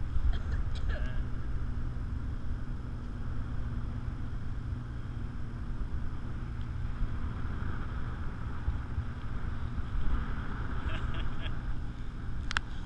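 Wind buffeting the microphone of a camera carried aloft under a parasail, a steady low rumble. A few light ticks come near the end, with one sharp click shortly before it ends.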